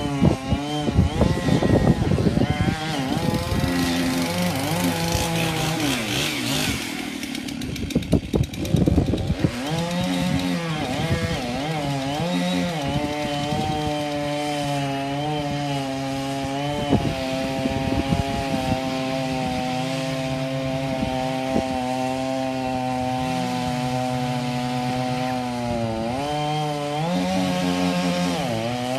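Chainsaw running and cutting wood. Its engine revs up and down over the first several seconds, then holds a high, steady pitch for a long stretch before easing off briefly near the end.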